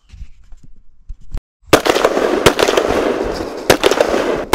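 Crowd applause, a dense clatter of many hands clapping that starts abruptly about a second and a half in.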